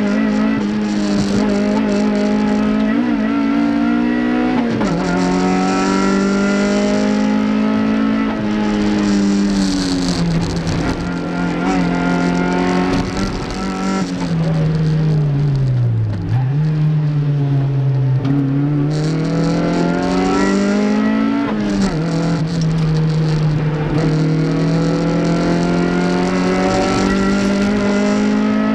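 Toyota MR2 race car's four-cylinder engine running hard through a lap: revs held high with quick gear changes around three and five seconds in, falling away under braking, dropping deepest with downshifts about sixteen seconds in, then climbing again through the gears.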